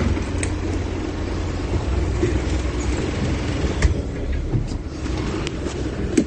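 Steady low rumble of a car heard from inside the cabin, with a few short sharp clicks, the loudest about four seconds in.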